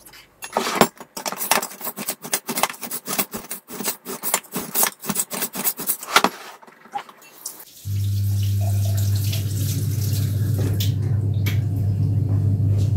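Dishes and cutlery clattering and knocking for about six seconds. About eight seconds in a kitchen tap is turned on and keeps running, with a low steady hum under the water.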